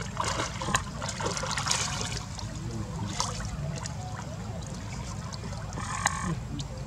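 Water splashing and dribbling as monkeys swim and thrash about, busiest in the first couple of seconds, with a sharp splash about six seconds in, over a steady low rumble.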